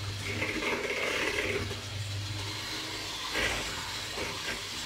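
Electric hand mixer running steadily, its beaters mixing cocoa into cake batter in a plastic bowl, with a brief louder noise about three and a half seconds in.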